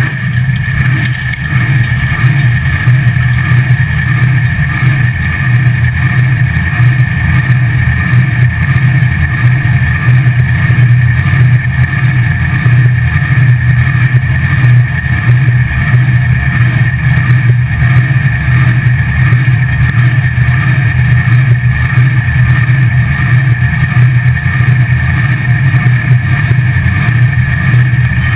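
Supercharged drag-racing engine of a Chevy LUV pickup running steadily and loudly as the truck cruises at low speed, heard from inside the cab.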